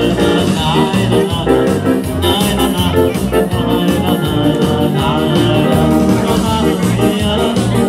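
Lively Hungarian dance music with a steady, pulsing bass beat under a running melody, played for couples dancing.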